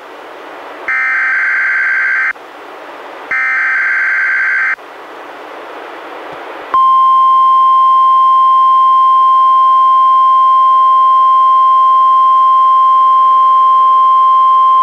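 Emergency Alert System SAME header on NOAA Weather Radio for a Required Weekly Test: two harsh digital data bursts a second or so apart, with receiver hiss between them. About seven seconds in, the steady 1050 Hz NOAA Weather Radio warning alarm tone starts and holds.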